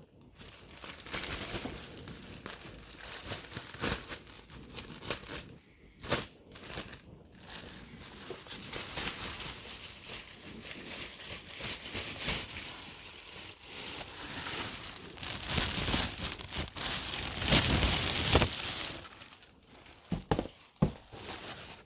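Packaging being handled and unwrapped: an irregular crinkling and rustling of paper or plastic wrapping, loudest and densest a little past the middle.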